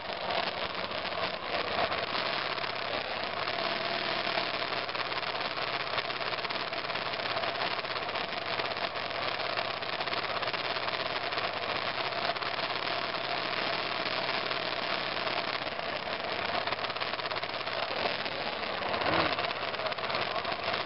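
A 2002 BMW F 650 GS Dakar's single-cylinder engine running steadily as the motorcycle rides a dirt trail, under a continuous hiss of wind and riding noise. A brief louder surge comes near the end.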